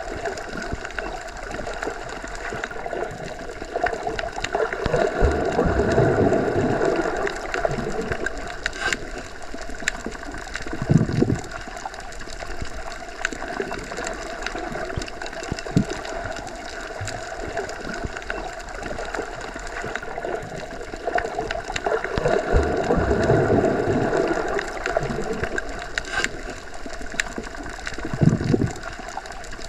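Underwater ambience: a steady muffled watery rush with fine crackling. It swells twice, about seventeen seconds apart, and each swell is followed a few seconds later by a short low thump.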